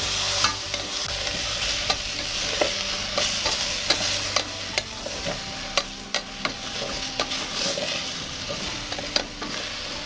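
Chunks of pumpkin and vegetables sizzling in hot oil in a stainless steel saucepan while a wooden spatula stirs them, with irregular knocks and scrapes of the spatula against the pot.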